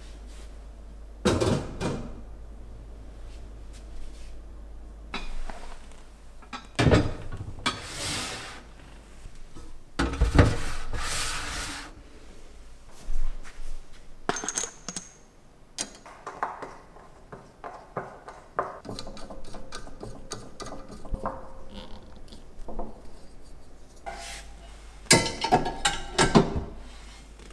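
Pots, pans and metal pan-rack parts being handled and set down in a kitchen cabinet: scattered clanks, clinks and knocks of metal, with handling rustles between them and a quick run of clanks near the end as pans are slotted into the rack.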